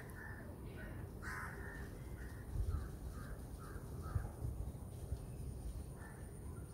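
Crow cawing: one loud caw about a second in, then a run of fainter caws over the next few seconds and another near the end.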